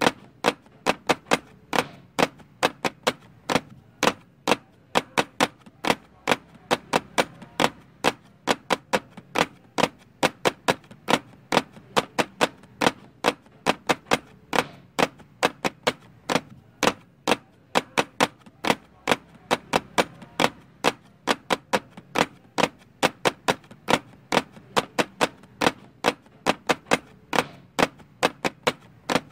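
Chopped onions frying in hot oil in a nonstick pot, crackling with sharp, irregular pops of spattering oil, several a second.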